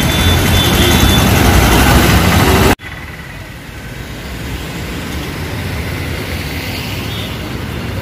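Street traffic with a bus engine running close by, loud and low; it cuts off abruptly about three seconds in, giving way to a quieter, steady hum of traffic.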